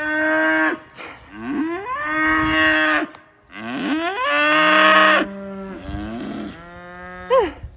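Cattle mooing over and over: long calls that slide up in pitch and then hold, the loudest about five seconds in. A second, deeper moo follows it, and a short call near the end swoops up and back down.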